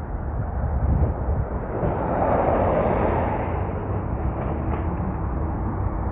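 Street traffic rumbling steadily, with one vehicle passing by that swells about two seconds in and fades away by about four seconds.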